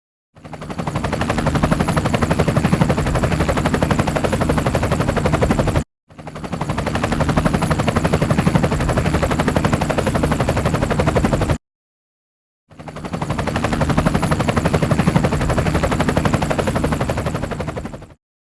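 Helicopter rotor blades chopping in a fast, even rhythm, with a faint high whine above. It plays three times, each time fading in and then stopping.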